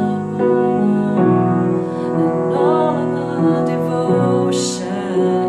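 Upright piano playing sustained worship-style chords in B major, with fresh chords struck about a second in and again about four seconds in, while a woman sings the melody over them.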